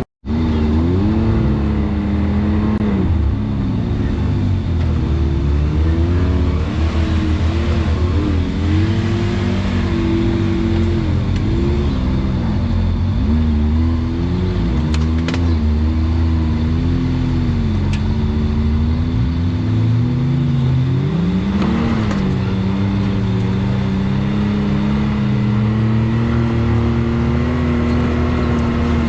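Side-by-side UTV engine running along a trail, its pitch rising and falling as the throttle comes on and off, with a climb about three quarters of the way in and steadier running near the end. The sound drops out for a split second right at the start.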